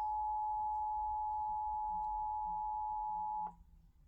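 Emergency Alert System attention signal: a steady two-tone alert tone that cuts off suddenly about three and a half seconds in. It is sounding for a required weekly test of the alert system.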